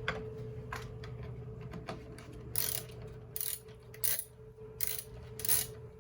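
Irregular clicks and short scrapes from a part being worked loose on a car headlight assembly, over a steady low hum.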